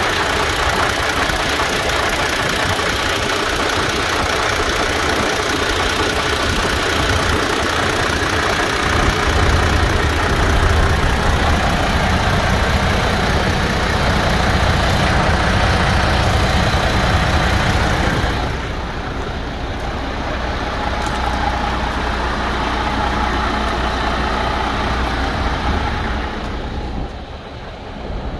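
MAN TGX 480's D26 inline-six diesel engine idling steadily, with a heavy low rumble. It gets quieter and thinner about two-thirds of the way through, and again near the end.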